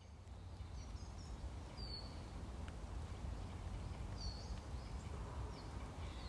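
Outdoor ambience with short, high, downward-slurred bird chirps every second or so over a steady low rumble, fading in at the start.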